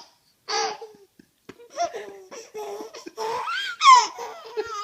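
Five-month-old baby laughing at his father's sneezes in a run of short, pitched giggles: one brief burst, a pause, then a longer string that peaks about four seconds in.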